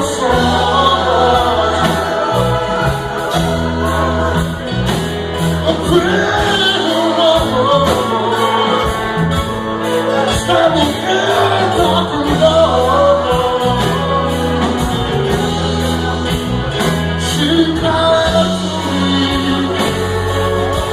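Live band playing with singing voices over it, in a gospel-tinged rock-soul style; low bass notes change every second or two beneath the voices.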